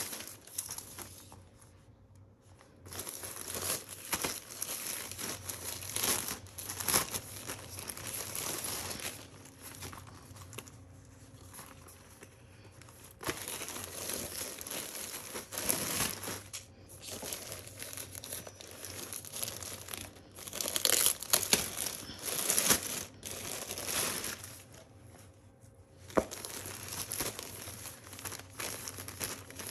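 Clear plastic packaging bags crinkling and rustling in irregular bursts as clothing is handled and pulled out of them, with some tearing.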